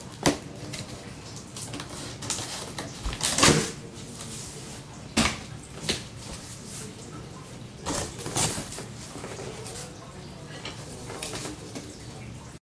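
Irregular knocks, clicks and rustles from handling packaging during an unboxing, with a louder cluster about three and a half seconds in and another about eight seconds in. The sound cuts off suddenly just before the end.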